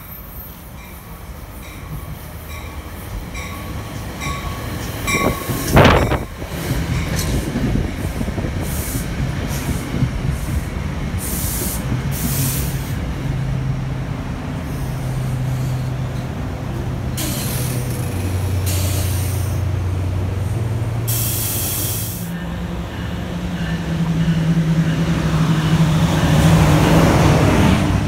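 Diesel-hauled commuter train running in along a station platform. It grows louder as it approaches and peaks in a brief loud burst about six seconds in, then settles into a steady rumble of engine and wheels broken by short bursts of hiss and wheel squeal.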